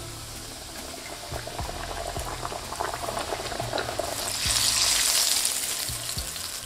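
Chicken pieces coated in seasoned flour shallow-frying in hot oil: a steady bubbling sizzle full of small crackles. It grows louder about four seconds in, then eases off.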